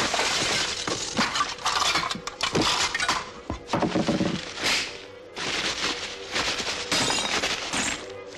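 A fast, dense jumble of clattering, crunching and shattering sound effects, like crockery, glass, metal and paper being smashed and ground together, with a brief lull about five seconds in. Music runs beneath, with a faint steady note throughout.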